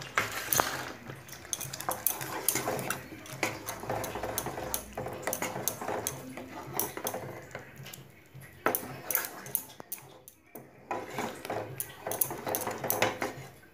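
Wooden spoon stirring thick spinach purée in a pan, with repeated light knocks and scrapes of the spoon against the pan. The stirring pauses briefly about ten seconds in.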